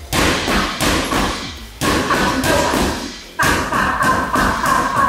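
Boxing gloves striking a leather heavy bag in fast combinations, several punches a second, in quick runs with short pauses between them.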